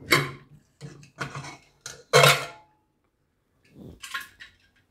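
Metal clinks and clatters of a pressure cooker being opened once it has finished cooking: the whistle weight is lifted off the vent and the lid is worked free and taken out, with a louder clatter about two seconds in.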